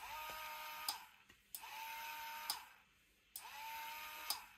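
Battery-powered toy police car running its drive motor in three short bursts of about a second each, a steady whir with a click as each burst starts and stops.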